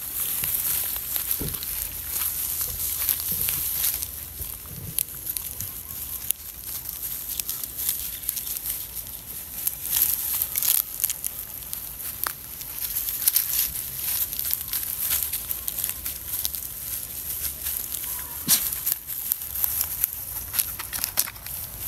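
Dry straw and fallen leaves rustling and crackling under a baby monkey, a puppy and a kitten as they scramble and play over them, with many short sharp crackles.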